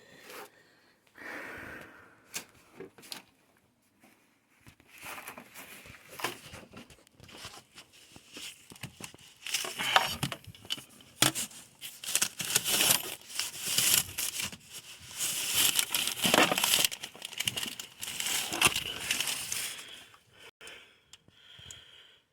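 Rummaging through a pile of items: crinkling and rustling, like plastic bags and packaging, with scattered clicks and knocks, sparse at first and busiest from about five seconds in until near the end.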